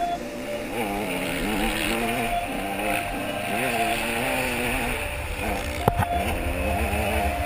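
KTM 200 two-stroke motocross bike engine revving up and down as the throttle is opened and closed. A sharp knock comes about six seconds in.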